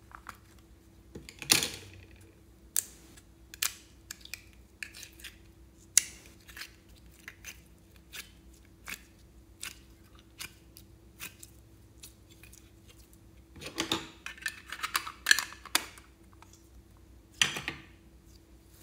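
Plastic unicorn-shaped slime container clicking and crackling as it is pried apart and handled, with scattered sharp taps. A louder snap comes about a second and a half in, and a busy run of crackling comes around fourteen to fifteen seconds, as the orange slime is pulled from the mould.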